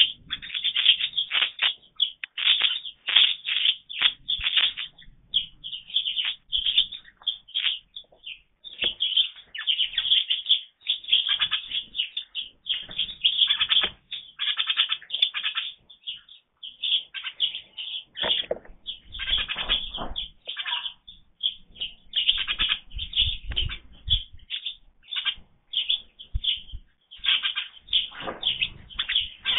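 A Eurasian jay foraging on a feeder tray: irregular rustling, pecking and fluttering in loose birdseed, with a few dull low thumps in the second half.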